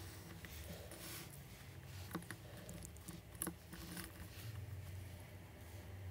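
Faint small clicks of watchmaker's tools handling a watch movement, two of them about a second and a half apart near the middle, over a low steady hum.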